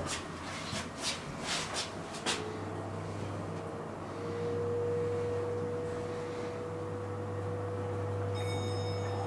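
Elevator car setting off and travelling: a few sharp clicks at first, then about two seconds in the drive comes on with a steady low hum and a whine that rises and then holds steady. Faint high tones join near the end.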